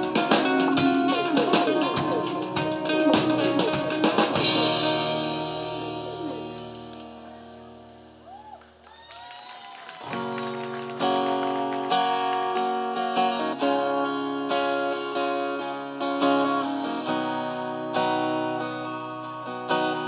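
Acoustic guitars strumming in a band's unplugged set, with bending lead notes over the chords. A final chord then rings out and fades away around eight seconds in. About ten seconds in, acoustic guitars start a new song's intro in steady strummed chords.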